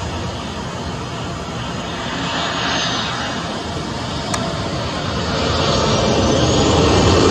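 Boeing 737-800's CFM56-7B jet engines rushing as the airliner touches down and rolls out. The noise swells briefly about two and a half seconds in, then grows steadily louder over the last two seconds. A single sharp click sounds about four seconds in.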